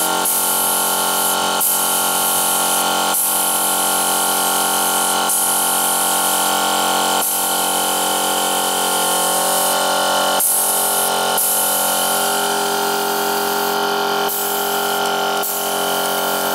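Gravity-feed air spray gun hissing as it sprays paint, the hiss starting and stopping in bursts every second or few as the trigger is worked, over a steady machine whine of several held tones.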